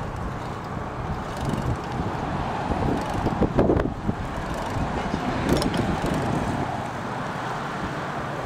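Steady road and wind noise of a car driving, a low rumble and hiss, with a brief louder rush about three and a half seconds in.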